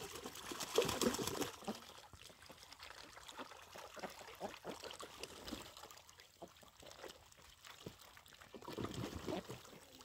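Ducks bathing and paddling in shallow water: small splashes and dabbling, with a louder burst of splashing about a second in and another near the end.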